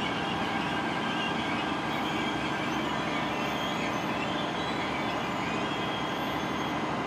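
NJ Transit electric locomotive and Multilevel coaches moving away along the track. The wheels rumble steadily on the rails, and a few steady whining tones ride on top.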